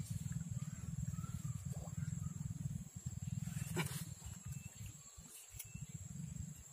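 Low, uneven rumbling outdoor noise with a steady high-pitched whine above it, a few faint chirps, and a sharp click about four seconds in.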